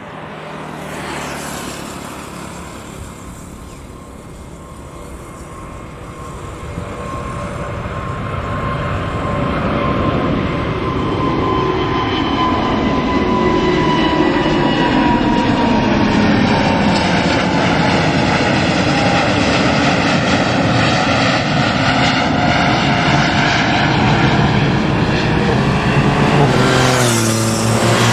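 Airbus A350-900's twin Rolls-Royce Trent XWB turbofans at takeoff thrust as the jet lifts off and climbs out overhead. The engine noise grows louder over the first ten seconds or so and then holds loud, while its tones glide slowly down in pitch as the aircraft passes over.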